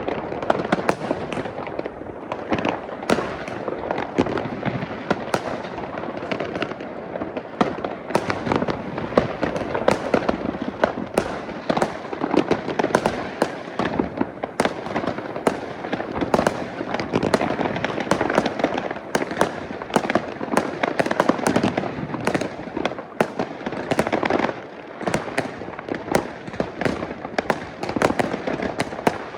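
Many consumer fireworks and firecrackers going off across a neighbourhood at once: a continuous barrage of overlapping bangs, pops and crackling with no let-up.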